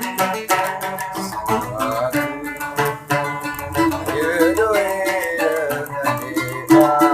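A large Sasak gambus, a fretless plucked lute, played solo in a quick, continuous run of plucked notes.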